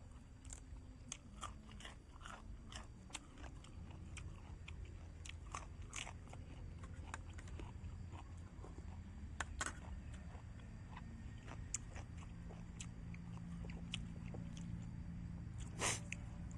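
A person chewing and biting into steamed herbal chicken close to the microphone, with irregular crunches and clicks.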